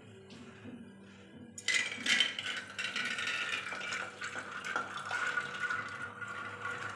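Soaked dried peas, with their soaking water, tipped from a steel bowl into an empty aluminium pressure cooker: a sudden wet splashing rattle starting about two seconds in and running on as the peas are scraped out of the bowl.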